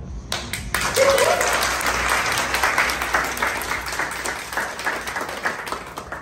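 A roomful of people applauding, starting about a third of a second in and thinning toward the end. A single voice calls out briefly about a second in.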